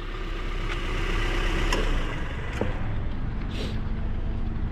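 Toyota Corolla 2E 12-valve four-cylinder engine idling steadily just after starting, with a couple of light clicks about midway. The engine has freshly replaced valve seals.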